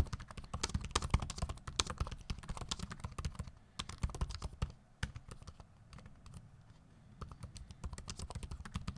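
Typing on the 2024 Surface Laptop 7th Gen's keyboard, close to the microphone: quick runs of key clicks that thin to a brief lull about halfway through, then resume near the end.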